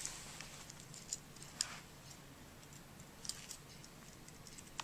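Faint handling sounds: a few light, scattered clicks and taps as fingers hook a stripped wire end around a thumbtack and press the tack down into the corkboard.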